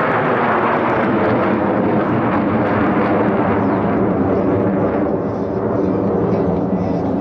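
Loud, steady jet engine noise from Blue Angels F/A-18 Super Hornets flying past, easing slightly about five seconds in.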